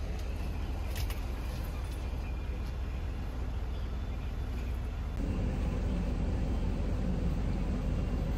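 Steady low rumble of a moving vehicle. About five seconds in it changes abruptly to a louder, steadier running noise.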